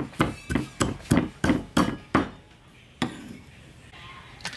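Meat cleaver chopping grilled pig ear and intestine on a wooden chopping board, about three sharp strokes a second, stopping a little past halfway. Then a couple of lighter single knocks.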